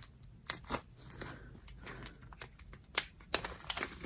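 Plastic bead packaging crinkling and rustling as it is handled, in scattered short crackles that grow louder near the end.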